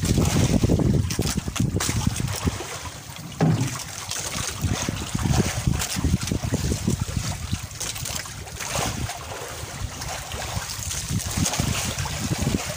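Wind buffeting the microphone in uneven gusts, with water sloshing and splashing against the hull of an outrigger boat on choppy sea.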